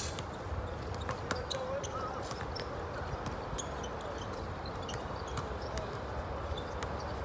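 Basketballs bouncing on an outdoor court: irregular knocks, several a second, over a steady background of distant voices.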